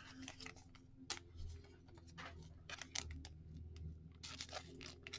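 Faint crinkling and rustling of a clear soft plastic card sleeve being handled as a trading card is slid into it, with scattered small ticks.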